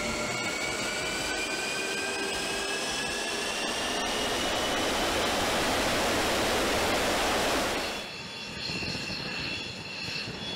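X-47B's Pratt & Whitney F100-PW-220U turbofan jet engine spooling up on a ground run: a rising whine, several tones climbing together over a growing rush of noise. About eight seconds in it cuts off abruptly and gives way to a quieter sound.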